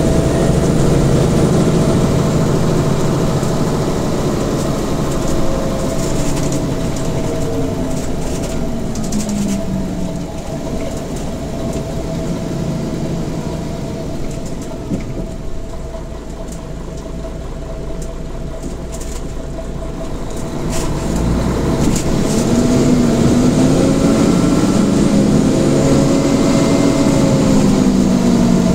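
Mercedes-Benz Citaro G articulated city bus heard from inside the cabin: the diesel engine falls in pitch as the bus slows, runs quieter at low revs for several seconds, then rises in pitch again as the bus pulls away.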